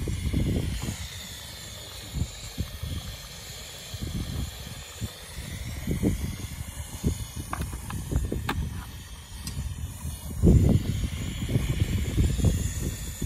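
Wind buffeting the microphone in uneven gusts, strongest about ten seconds in, over a steady hiss from a portable gas burner heating a pot of chicken curry. A few light clicks of a metal spatula against the pot come near the middle.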